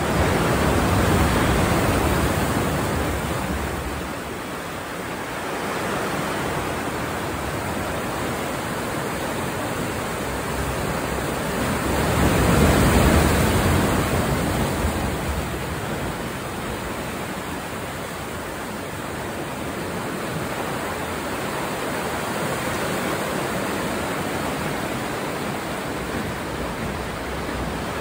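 Ocean surf washing into a sea cave: a continuous rushing of water, with two louder surges, one near the start and one about halfway through.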